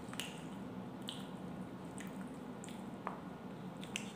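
Metal fork stirring and lifting instant noodles in a cup: a handful of light clicks and scrapes of the fork against the cup, with soft wet squishing of the noodles, over a steady low hum.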